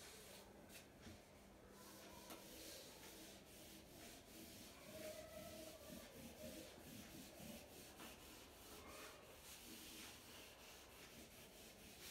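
Whiteboard eraser wiping across a whiteboard in repeated strokes, faint.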